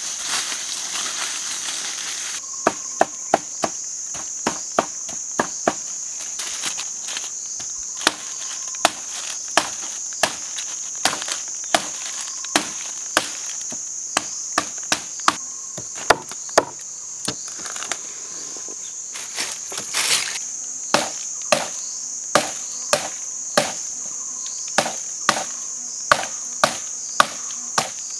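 A large knife chopping and notching wood in a steady series of sharp strikes, a little over one a second, starting a couple of seconds in with a short pause about two-thirds of the way through. Underneath is a steady high-pitched drone of crickets or other insects.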